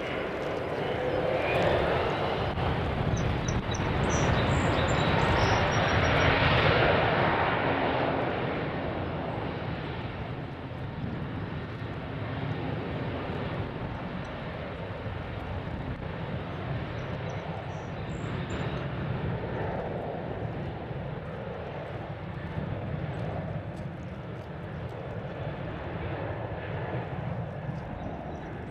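Jet airliner passing. Its engine noise swells to a peak a few seconds in, then fades to a steady, more distant rumble.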